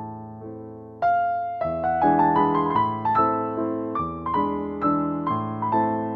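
Background piano music: gentle notes and chords, each struck and fading, with a louder passage coming in about a second in.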